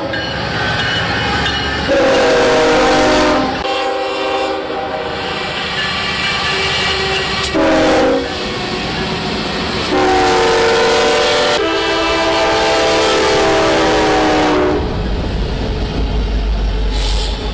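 Freight locomotive air horns sounding in long and short blasts at grade crossings, over the steady noise of trains passing. Near the end a deep diesel engine rumble from a locomotive passing close.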